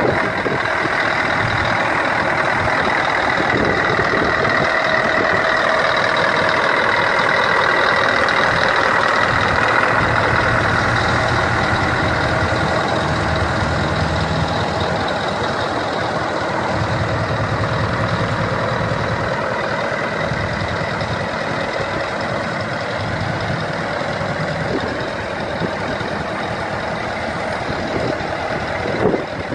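Scania 164 V8 diesel truck engine idling steadily through a loud exhaust.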